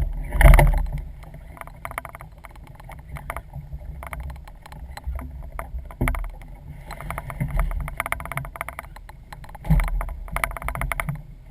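Knocks, clicks and a low rumble of handling on a small boat, with one heavy thump about half a second in.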